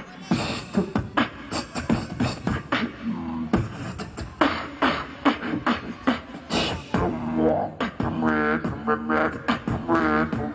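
Beatboxing into a handheld microphone over a PA: quick drum-like kicks, snares and clicks in a steady beat. From about seven seconds in, pitched vocal tones are woven in with the beat.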